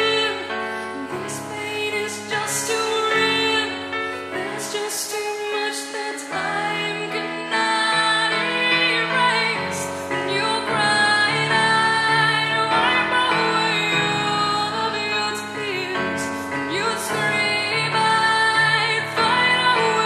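Background music: a song with a woman singing over instrumental backing.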